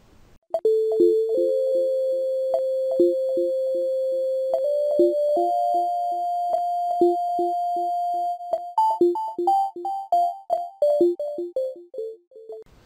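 Short synthesizer keyboard jingle: a held melody stepping upward over a pulsing repeated lower note, about three pulses a second, turning into a quick run of falling notes near the end before it stops.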